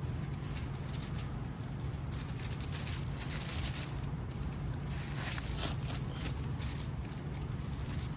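Steady high-pitched insect chorus, a continuous trill typical of crickets, over a low steady rumble, with a few faint clicks of handling.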